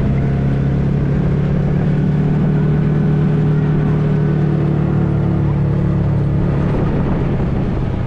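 Engine of an open-top off-road safari vehicle running steadily as it drives along, a constant low hum with overtones that eases slightly near the end.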